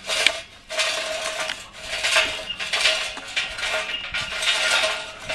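Lit charcoal briquettes poured from a metal chimney starter onto unlit briquettes and wood smoking chunks in a smoker's charcoal ring, clattering and clinking against each other and the metal in a continuous stream, with a couple of brief pauses in the first two seconds. This is lit coals going on top of unlit ones for a Minion-method fire.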